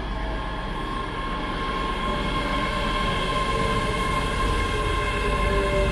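ScotRail Class 385 electric multiple unit pulling into the platform. Its running noise carries steady whines and a lower tone that slowly falls in pitch, growing a little louder.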